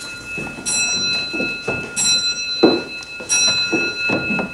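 Slow, evenly spaced bell-like ringing notes, struck about every two-thirds of a second, over a steady high whine.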